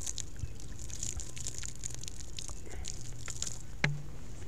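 Water poured from a plastic bottle over a hand, splashing and dripping onto dry ground in an irregular patter. There is one sharp click near the end.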